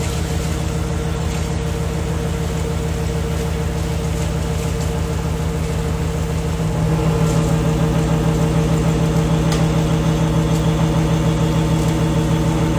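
EPS foam moulding machine running: a steady mechanical hum with a fast low pulsing, stepping up in level about seven seconds in.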